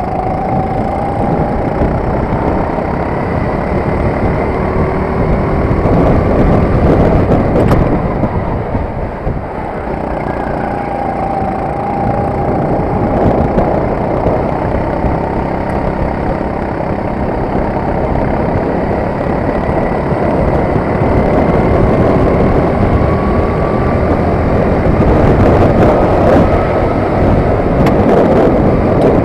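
Four-stroke engine of a Sodi RT8 rental kart running at speed, heard from onboard. Its pitch rises and falls as the throttle is worked through the corners, with a brief drop in level about nine seconds in.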